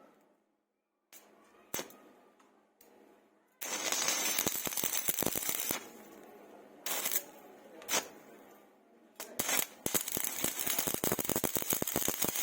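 Stick-welding arc crackling and sputtering in two bursts of a few seconds each, cutting off and restarting. Single sharp clicks fall in the pause between them.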